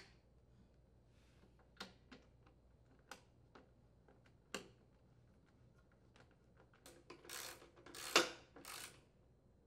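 Faint handling sounds of mower hardware being fitted: a few separate small clicks and taps as a nut is threaded by hand onto a stud holding the plastic shroud, then a short run of scraping and rattling as parts are handled, about seven to nine seconds in.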